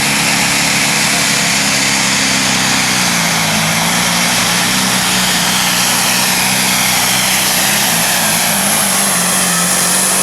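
Diesel pull truck with a P-pump injection pump running at full throttle while pulling the weight sled. The engine note stays loud and steady, with a high whistle over it, and its pitch drops slightly about three seconds in as the load comes on, then holds.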